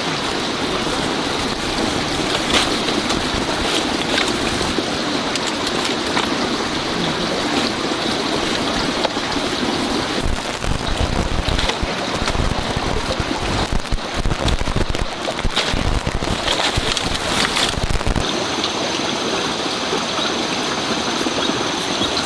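Steady rain falling, with scattered light clicks and knocks.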